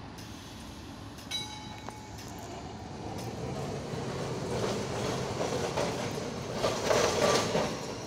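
W8-class heritage tram rolling closer along the track, its running noise growing steadily louder, with a clatter of wheels on the rails loudest near the end.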